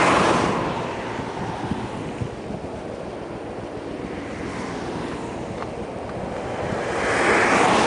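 Motorway traffic passing close at speed: a rushing swell of tyre and wind noise as a vehicle goes by at the start, fading to low road noise, then another car's noise building and passing near the end.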